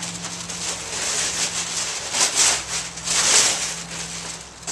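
Large sheets of heavy brown paper moving pad rustling and crinkling as they are crumpled and torn up by hand, with two louder bursts of crackling rustle in the second half.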